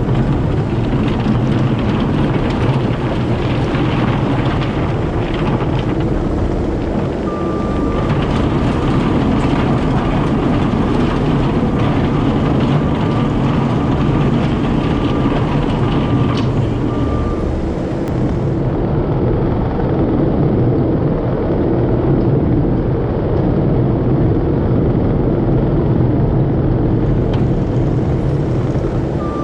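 Heavy diesel equipment engine running steadily under work, with a backup alarm beeping for about ten seconds midway.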